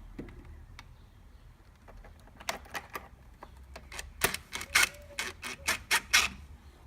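An irregular run of about a dozen sharp clicks and taps, starting about two seconds in, from working the plastic oil-cooler air ducting and its fixings in a car's front wheel arch.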